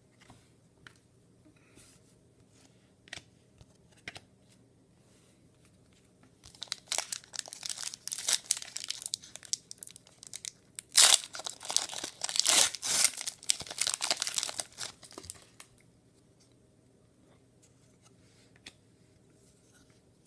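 A trading-card pack's wrapper torn open and crinkled, a dense burst of tearing and crinkling lasting about nine seconds, after a few faint taps.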